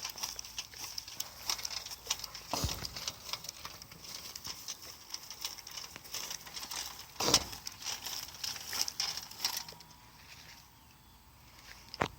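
Hand-worked hilling tool scraping and crunching through soil, with heavier thuds about three seconds in, about seven seconds in and at the very end; the scraping dies away about ten seconds in.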